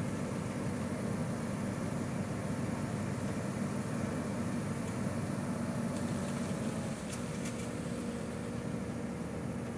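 Komatsu hydraulic excavator's diesel engine idling steadily, with a low hum that eases slightly about seven seconds in.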